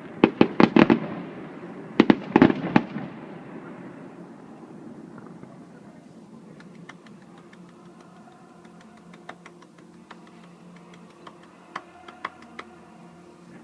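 Fireworks shells bursting in two quick volleys of loud bangs within the first three seconds, with a rumbling echo that fades away, followed by scattered fainter crackles and pops.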